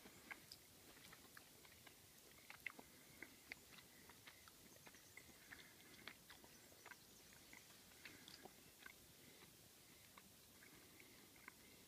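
Near silence with faint, irregular small clicks: a pademelon chewing food.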